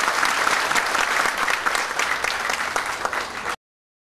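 Audience applauding, many hands clapping together and thinning slightly, until the sound cuts off abruptly about three and a half seconds in.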